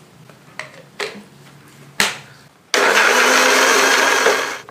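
Three sharp clicks, then a small electric blender switches on about two and a half seconds in and runs steadily for about two seconds before cutting off. It is grinding sidr (bidara) leaves with a little water into a frothy juice.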